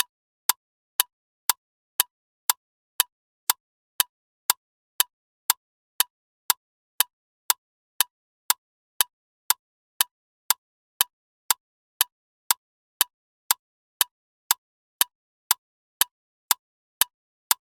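Clock ticking loudly and evenly, two sharp, identical ticks a second with silence between them.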